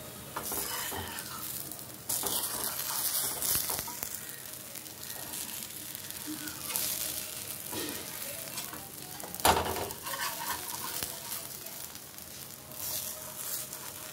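Pesarattu sizzling in oil on a hot thick griddle pan, its second side browning. A spatula scrapes against the pan in several stretches and strikes it once sharply about nine and a half seconds in, the loudest sound.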